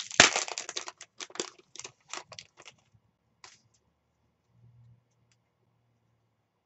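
Trading cards being handled and flicked through by hand: a quick run of crisp clicks and rustles over the first three seconds, loudest just at the start, then only a few faint ones.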